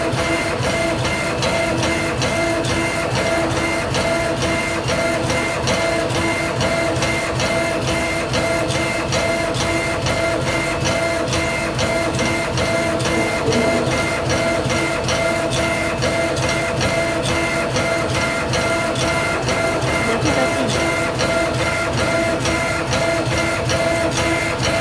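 Schnell C1325 CNC laser engraver's head scanning back and forth while raster-engraving, its stepper motors whining at a steady pitch with a short knock at each reversal, about two to three times a second.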